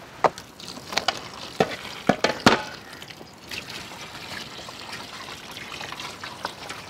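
Milk poured in thin streams from cartons into a large aluminium pot of chopped chocolate and milk, trickling steadily. A few sharp knocks come in the first two and a half seconds.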